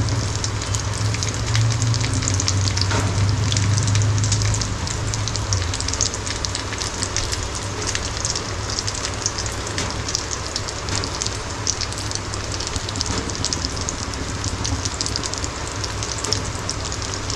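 Two semolina-and-poppy-seed-coated rohu fish shallow-frying in oil on low flame, with a steady sizzle and fine crackling throughout. A low hum sits under it for the first five or six seconds.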